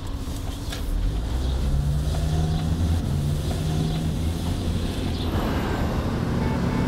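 Motor vehicle running: a steady low engine and road rumble with a faint hum, joined about five seconds in by a wider hiss of traffic.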